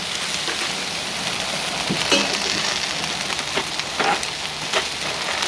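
Vegetables and udon noodles sizzling in oil on a hot Blackstone steel griddle, a steady frying hiss with a few brief taps.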